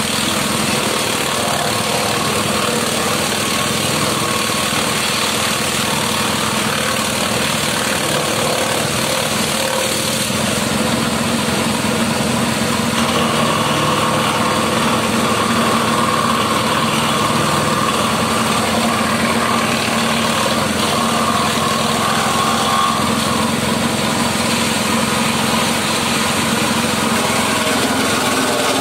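Grass chopper (forage cutter) running steadily at full speed while green leaves and stalks are fed into it and cut up.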